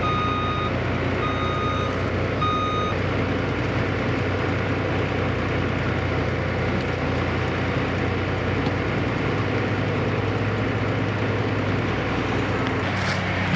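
A truck's reversing alarm beeping, about once every second and a quarter, stopping about three seconds in, over the steady drone of a heavy diesel engine running. The truck is a concrete mixer truck backing up to the line pump.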